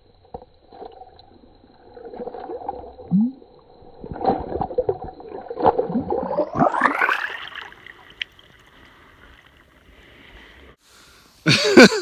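Water splashing and gurgling in a hole in the ice as a walleye is lowered back in and kicks away, under a man's wordless voice rising and falling in pitch. A man starts talking near the end.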